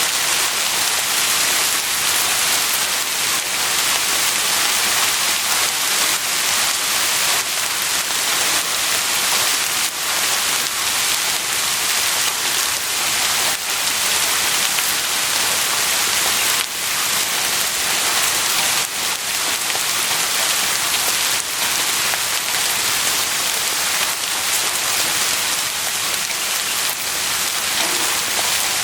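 Heavy rain falling steadily, a dense even hiss of drops on a surface with scattered individual drops heard through it.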